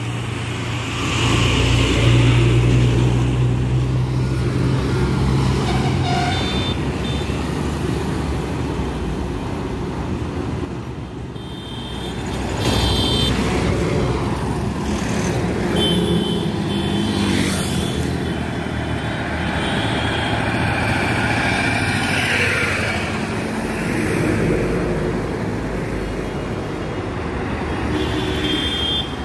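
Heavy loaded trucks and other traffic running past on a highway, with a strong low diesel engine drone in the first few seconds. Vehicle horns sound briefly several times, around the middle and again near the end.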